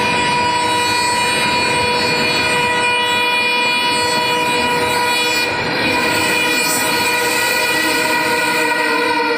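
Humsafar Express passenger coaches rolling past at speed close by: a loud, steady rumble of wheels on rail with a sustained high ringing tone over it.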